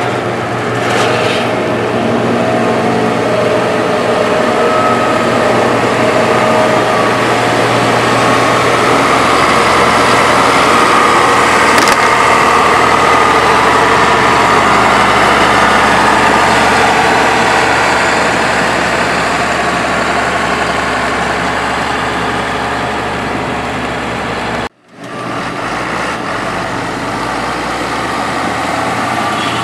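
Heavy diesel engines of road-construction machinery running steadily, with a loud hum that swells in the middle. The sound breaks off for a split second near the end.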